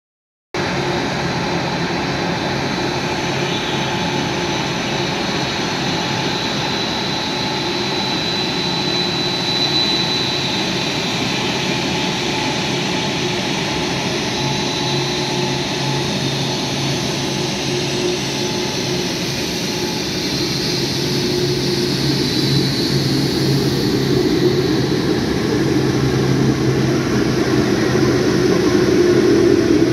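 Boeing 787 airliner's jet engines running at taxi power as it rolls past: a steady rumble and low hum with a thin high whine on top, slowly growing louder over the last several seconds as the aircraft comes nearer.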